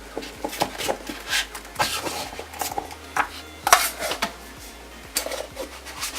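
Product packaging and a smart bulb being handled on a table: irregular clicks, taps and rustles of cardboard and plastic.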